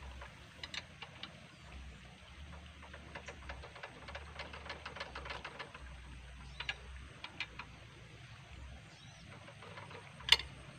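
Faint rapid metallic clicking of a wrench tightening bolts on a hand tractor's frame, with a run of quick ticks midway and one sharp metal clank near the end.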